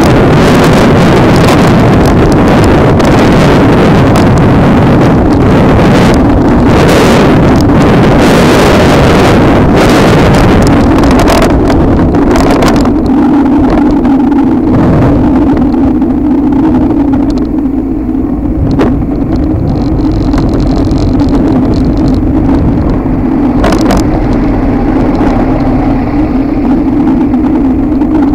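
Wind rushing over the microphone with road noise while riding a Daymak Kingston 72-volt electric scooter. The wind eases about halfway through, leaving a steady low hum.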